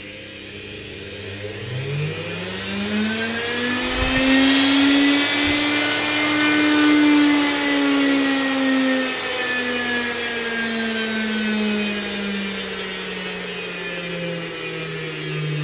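Washing-machine commutator motor speeding up from nearly stopped, its whine rising in pitch over a few seconds and then slowly falling as it slows again, with brush hiss over it. Its speed follows small changes in supply voltage, around 202 volts, set through a variac. Two short low knocks come about four and five and a half seconds in.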